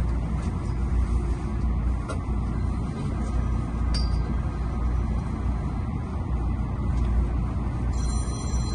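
MTR Tung Chung Line CAF electric train running with a steady low rumble. A brief high whine joins in near the end.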